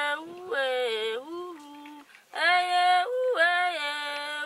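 A woman singing unaccompanied, her voice holding notes and flipping abruptly between a low and a high pitch in a yodel-like way, with a short breath pause about two seconds in.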